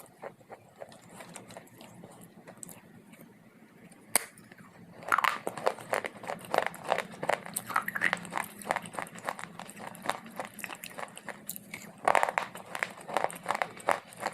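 Close-miked biting and chewing of hard dry clay, crunching and crackling. Faint scattered clicks at first, then about a third of the way in a dense run of sharp crunches begins, with a fresh loud bite near the end.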